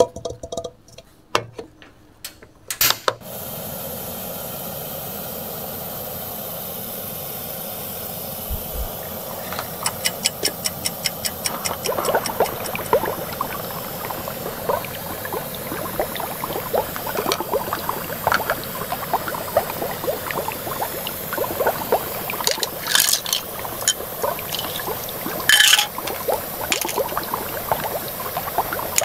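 A few knocks as a small kettle is set down on a miniature electric cooktop, then a steady hiss as its water heats. Later come a quick run of ticks and a growing crackle of small bubbles as the water comes toward the boil.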